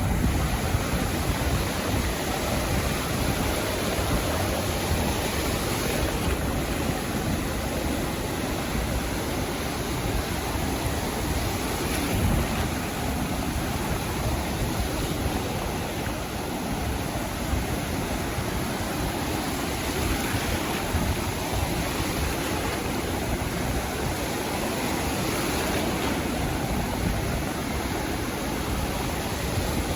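Sea surf washing onto a beach: a steady rushing wash of breaking waves that swells slightly now and then.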